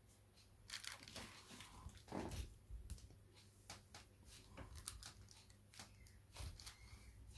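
Faint rustling and crinkling with scattered short clicks, starting about a second in and coming irregularly.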